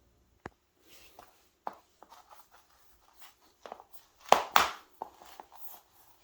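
Handling noises from a thick 1/0 gauge power cable being laid out: scattered knocks, clicks and short rustles, with a sharp click about half a second in and the loudest knocks a little past four seconds in.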